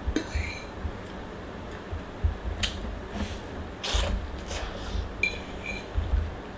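Eating utensils clinking and scraping against a dish in scattered clicks, with one brief ringing clink a little past five seconds in and low knocks from handling.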